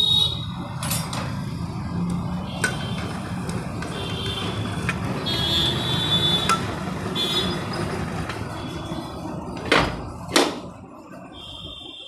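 Steady low mechanical rumble with scattered light clicks, then two sharp knocks about ten seconds in, after which the rumble dies down.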